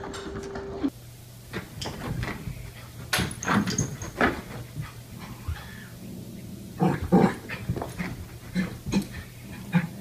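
Small dog barking at its own reflection in a mirror, in short, sharp barks repeated in two runs, the loudest about seven seconds in.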